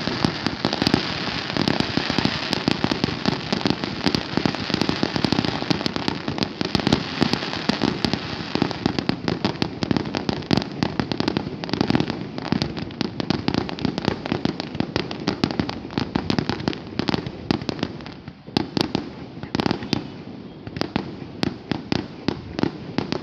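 Fireworks display: a dense, continuous crackle of rapid bangs and pops as shells fire in quick succession, thinning out to separate bangs in the last few seconds.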